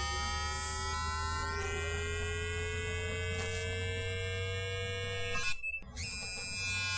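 A steady buzz with many overtones over a low hum, its pitch slowly rising. It cuts out briefly about five and a half seconds in, then resumes.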